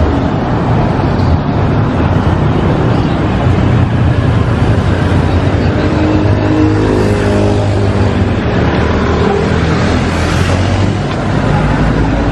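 Street traffic: motor vehicle engines running and passing in a steady low rumble, with one engine's pitch shifting as it goes by around the middle.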